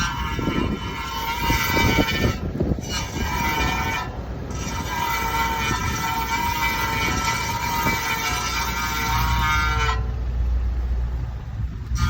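Bent brake dust shield on a 2007 Honda Accord scraping against the brake rotor at slow speed in a left turn, making a high ringing screech. The screech comes in three stretches with short breaks at about two and a half and four seconds in, and stops about two seconds before the end, over a low rumble from the rolling car.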